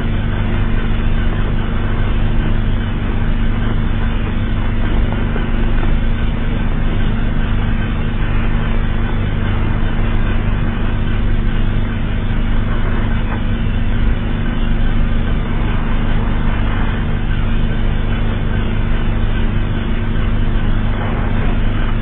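A loud, steady low drone of several held tones under a rumbling hiss, unchanging throughout: the sound bed of a made-up emergency alert system (EAS) alarm.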